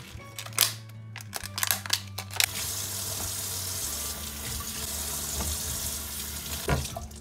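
A few sharp clicks and knocks, then a kitchen tap running steadily into a stainless-steel sink for about four seconds, shut off shortly before the end.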